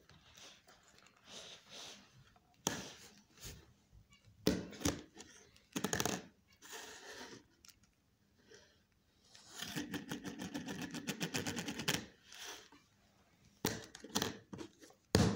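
Cockatiel held in the hand making scattered clicks and short bursts of chatter, with a rapid, even run of clicks lasting a couple of seconds past the middle.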